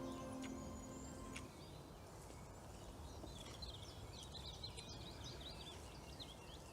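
Background music ending about a second and a half in, then small wild birds chirping and twittering for a few seconds over faint outdoor background noise.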